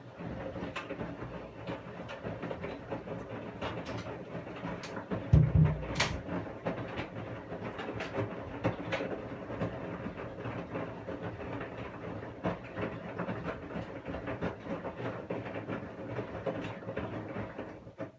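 Washing machine running: a steady motor hum under frequent small clicks and knocks as the drum turns. A heavy low thump comes about five seconds in, followed by a sharp click. The sound cuts off suddenly near the end.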